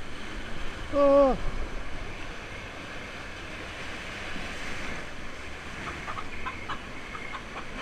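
Rushing water of a river-rapids raft ride with wind buffeting the microphone. About a second in, a short loud voiced shout stands out, dropping in pitch at its end.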